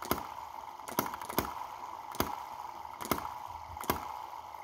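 Tiny four-stroke petrol model engine running slowly. It gives a sharp pop roughly once a second, at slightly uneven spacing, over a faint steady hum.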